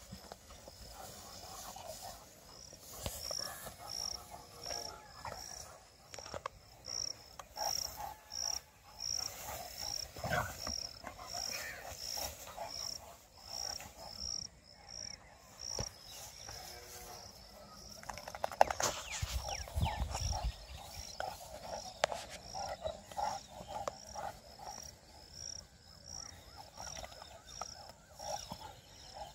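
Dogs growling and snarling on and off as they play-fight. Behind them a high chirp repeats about two or three times a second.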